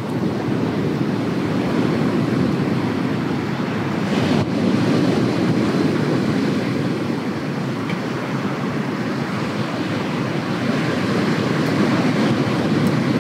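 Steady rushing of wind and surf by the sea, with wind buffeting the microphone.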